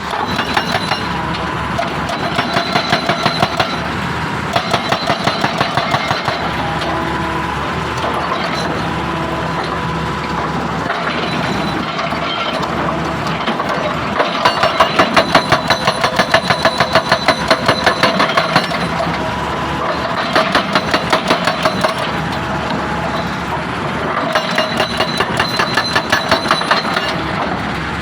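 Heavy stone-crushing machinery running steadily, broken by about five spells of rapid, even hammering on rock, each lasting a few seconds, the longest and loudest about halfway through.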